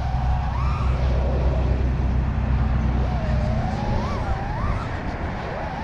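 FPV freestyle quadcopter's brushless motors and propellers whining, the pitch gliding up and down with the throttle, over steady wind rush.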